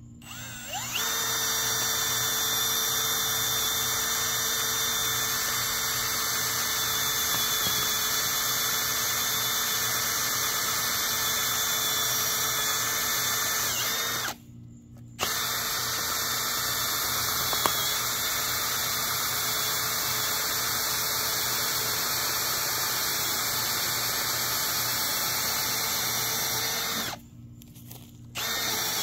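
Power drill turning a 4-inch earth auger bit, boring a post hole in the ground: a steady motor whine that starts about a second in and stops briefly twice, once midway and once near the end.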